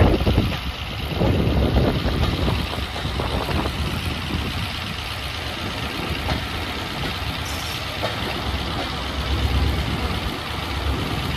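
Railway passenger coaches rolling past along the platform, wheels rumbling on the track, over the steady running of a diesel locomotive engine.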